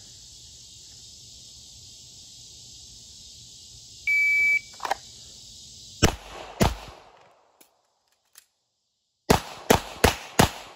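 A shot timer beeps once over steady cricket chirping. About two seconds later a 9mm Smith & Wesson M&P pistol fires two quick shots. After a pause of about two and a half seconds, with a couple of faint clicks of the slide-lock reload, it fires four more shots in quick succession.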